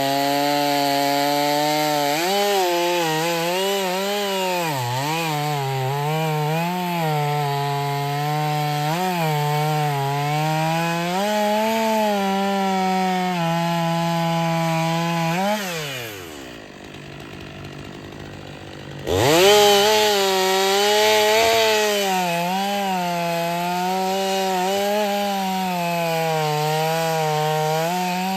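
Stihl 500i two-stroke chainsaw running at high revs cutting firewood, its pitch dipping and recovering as the chain bites and clears. About fifteen seconds in it falls away to idle for a few seconds, then revs sharply back up.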